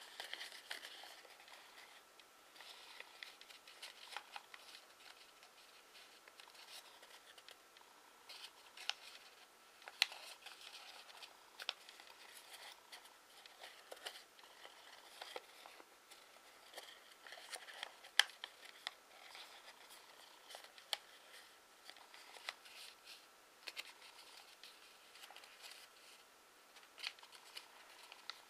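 A square sheet of origami paper being folded and creased by hand: faint rustling broken by many short, crisp crackles and clicks at irregular moments.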